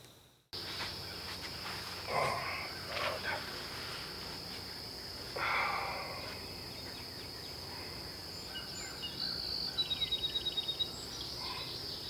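A steady, high-pitched chorus of insects droning without a break. A few short louder sounds come about 2, 3 and 5½ seconds in, and a quick run of about ten clicks comes near 10 seconds.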